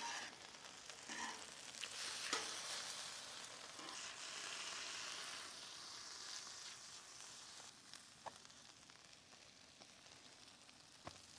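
Oil and meat juice sizzling on a hot Pit Boss two-burner griddle as pita bread toasts in it. The sizzle fades in the second half, and a few light clicks are heard.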